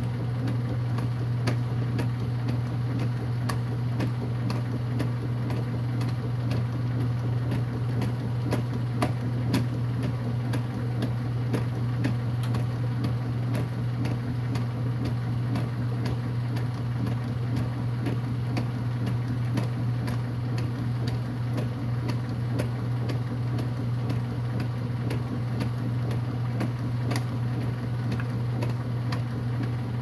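Kenmore 80 Series direct-drive top-loading washing machine in rinse agitation: a steady motor hum with water sloshing and splashing as the agitator churns a load of towels.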